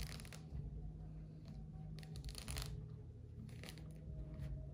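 Thick white pith being torn and peeled off a pomelo by hand, in three short rasping pulls: at the start, about two seconds in, and near the end.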